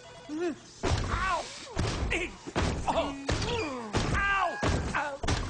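Cartoon soundtrack: a run of heavy thumps, roughly one a second, with sliding, swooping pitched tones between them.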